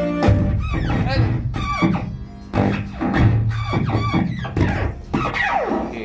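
Strange warbling sounds from a microphone sound system, the pitch swooping up and down over and over, over backing music: the sign of an electrical fault in the microphone setup, which also gives a shock.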